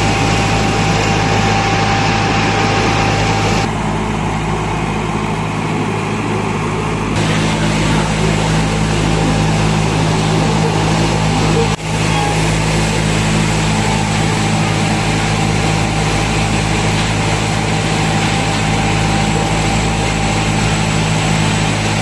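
An engine running steadily at idle, a constant low drone with no change in speed.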